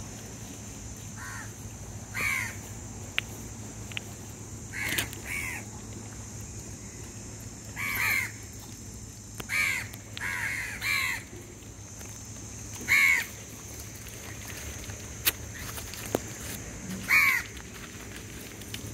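A crow cawing again and again: short, harsh single and double caws every one to three seconds. A few faint sharp clicks fall between the caws.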